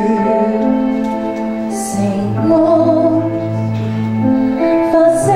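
Slow, tender live music with long held chords changing every second or two.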